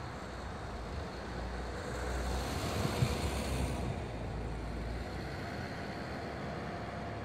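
Town-centre street noise with a low rumble; a vehicle passes by, swelling and fading about two to four seconds in.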